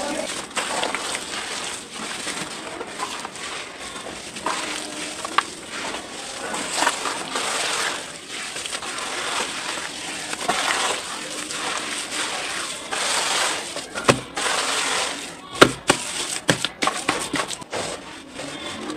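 Damp red dirt being squeezed and crumbled by hand into a tub of wet mud, the clumps falling and breaking apart: a continuous crumbling noise full of small sharp clicks, with a few louder snaps near the end.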